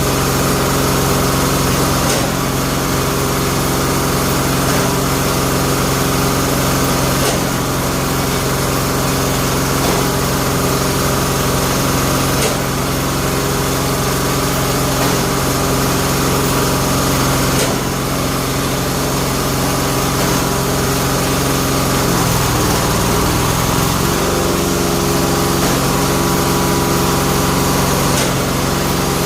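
Bamboo-splitting machine's small engine running steadily. Its pitch dips and wavers briefly about 22 seconds in, then steadies again.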